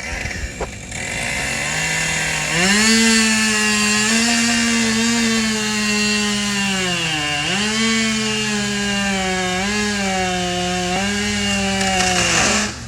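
Chainsaw running at high throttle as it cuts through a large live oak leader. The engine note sags under load about seven seconds in and recovers, then cuts off suddenly near the end.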